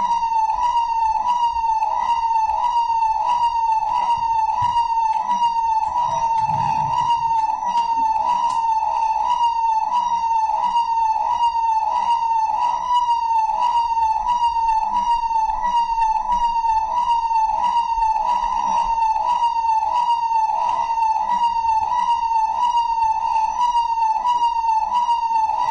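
An electronic siren sound effect, played loud and without a break: a high wail near 1 kHz that cycles about twice a second. It is being used as a wake-up alarm.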